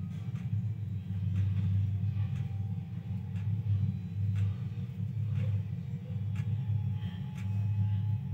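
Steady low rumble, with faint light clicks now and then.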